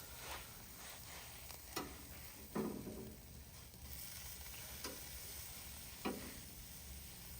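Deer backstrap sizzling in melted butter in a hot cast iron skillet on a grill, with a steady faint hiss and a few sharp pops of spattering fat.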